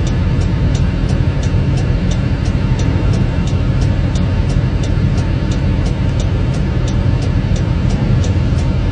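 A vehicle engine idling steadily, with a fast, even ticking over it, about three ticks a second.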